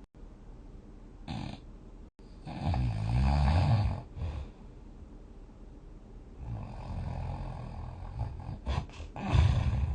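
A person snoring in several breaths, loudest about three seconds in and again near the end, with a softer snore in between.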